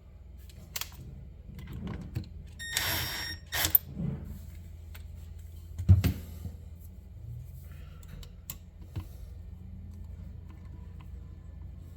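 Clicks and clatter of small metal parts and tools being handled, with a rattling scrape about three seconds in and a sharp knock about six seconds in.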